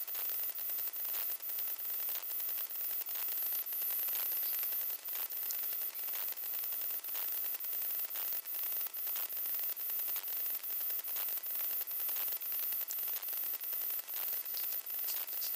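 Steady electronic hiss and static with faint regular ticks about three times a second: the self-noise of a digital night-vision scope's recorder.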